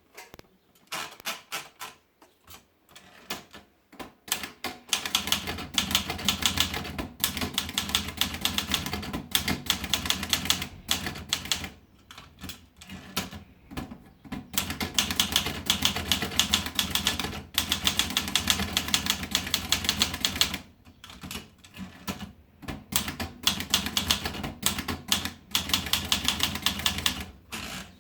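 Olivetti Lettera 32 portable manual typewriter being typed on. A few scattered keystrokes come first, then long runs of rapid, evenly paced key strikes broken by short pauses.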